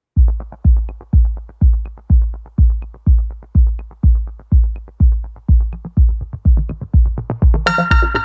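Electronic music: a steady drum-machine kick about two beats a second with light ticks between, joined by a bright synthesizer chord near the end.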